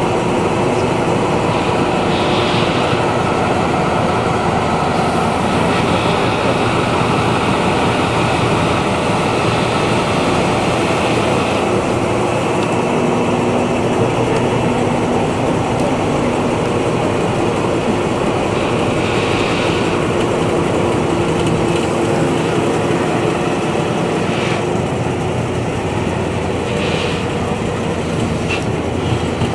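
An engine running steadily, a constant mechanical drone.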